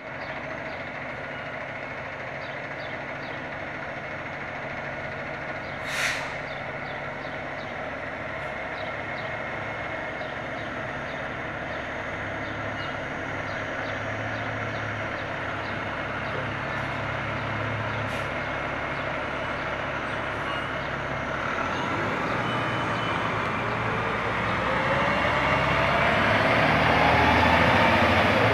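2012 Pierce Velocity pumper fire engine's diesel engine idling steadily, with a short sharp air hiss from its brakes about six seconds in. Later the engine revs up, rising in pitch and growing louder as the truck pulls out and drives past, with no siren.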